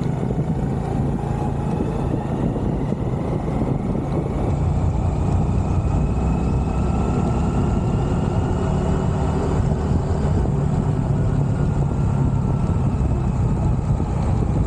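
A motor vehicle running steadily on the move: a low engine and road rumble, with a faint whine slowly rising in pitch partway through.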